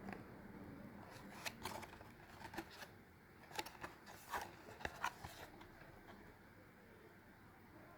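Hands handling an earphone box and its contents: a string of light clicks and rustles from about one and a half to five and a half seconds in.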